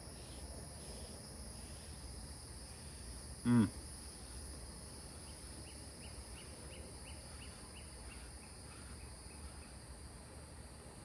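Steady high insect chorus. One brief loud call falls in pitch about three and a half seconds in, and a run of faint quick chirps comes a couple of seconds later.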